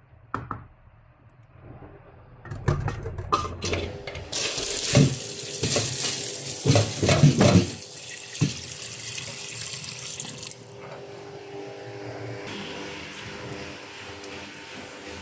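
Water running from a tap into a sink, with knocks and clattering of things being handled in it. The flow is strongest for about six seconds, then turns quieter about ten seconds in.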